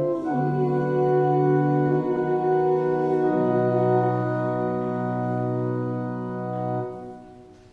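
Organ playing slow, sustained chords that change every second or two; the final chord is released about seven seconds in and dies away.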